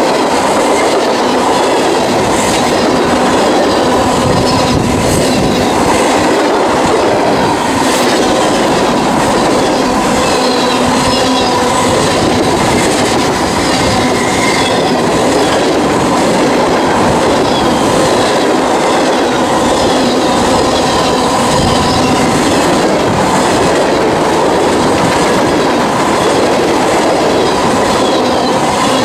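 Loud freight train rolling past steadily. Railcar wheels click over the rail joints, with a steady squeal from the wheels on the rails.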